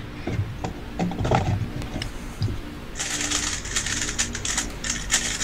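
Plastic clicking and clattering of 3x3 speedcubes being handled and set down on a desk, with light knocks as the cubes and their cover boxes go down. From about three seconds in, a dense run of rapid clicks.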